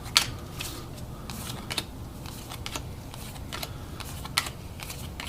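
Trading cards being flipped through by hand, with light clicks and snaps roughly once a second as each card is slid off the stack.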